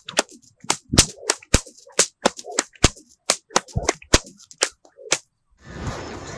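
Two whips cracking one after the other in a fast two-handed cyclone routine: a fast figure eight in each hand with the arms crossed, about three to four sharp cracks a second. The cracks stop about five seconds in, and a swelling whoosh sound effect follows.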